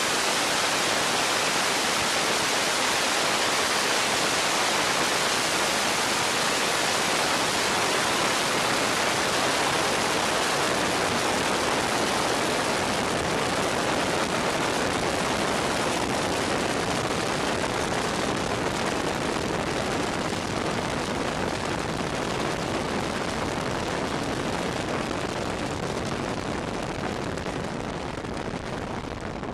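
Steady rush of wind and engine noise picked up by the onboard microphone of an open-wheel race car at speed. It eases off over the last several seconds as the car slows onto pit road.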